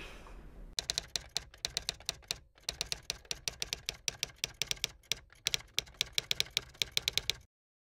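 Typing on a keyboard: quick runs of keystrokes with two short breaks, cutting off abruptly into dead silence near the end.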